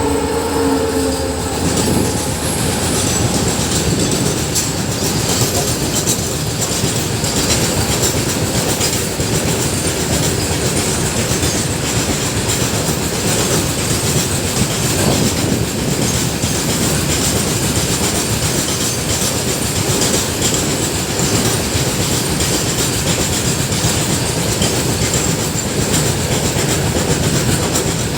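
Freight train wagons rolling past at close range: a steady heavy rumble with wheels clicking over the rail joints, and a thin steady high whine over it. A horn trails off in the first second.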